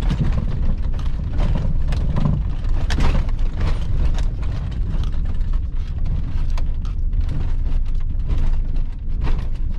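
Chevy Silverado pickup driving slowly off-road in first gear: a steady low engine rumble with frequent sharp knocks and rattles as the truck jolts over rough ground.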